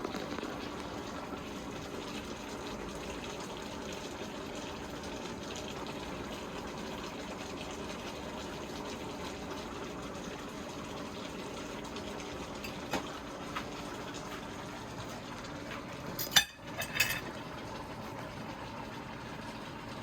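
Steady bubbling of a pot boiling on the stove, with a few sharp knocks about 13 and 16 to 17 seconds in, the loudest near the end.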